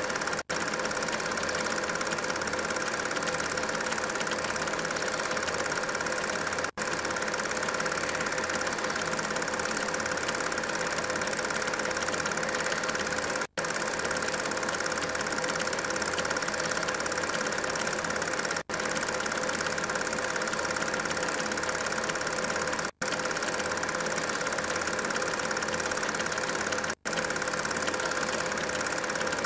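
Film projector running with a steady mechanical whirr, broken by six split-second dropouts where the film is cut.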